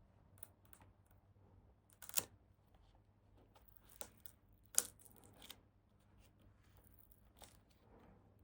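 Wrapping tape being peeled and unwound from a motorcycle wiring harness: faint crackling and peeling, with two sharper rips about two and five seconds in.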